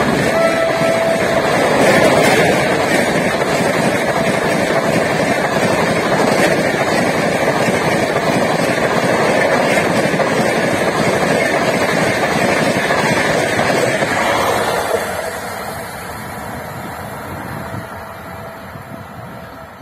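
Indian Railways express train of LHB coaches passing close at speed: a loud, steady rush and rumble of wheels on rail that lasts about 15 seconds, then dies away. The tail of the locomotive's horn, already dropped in pitch as it went by, sounds for the first second or so.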